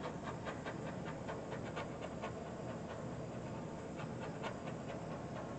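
Small handheld butane torch running with a steady hiss as it is passed over wet acrylic pour paint to pop air bubbles, with faint irregular ticks through it.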